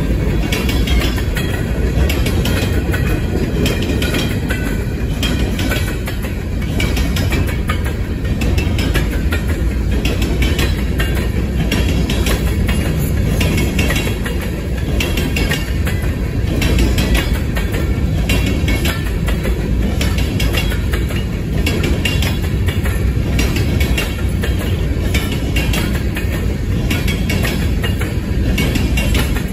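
A freight train of empty covered grain hopper cars rolling past: a steady rumble of steel wheels on rail with a regular clicking as the wheels cross the rail joints.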